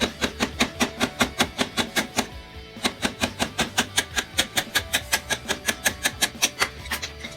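Rapid, evenly spaced metallic clicks or taps from a hand tool working on the motorcycle's rear axle hardware, about five a second, in two runs with a short pause between them. Background music plays underneath.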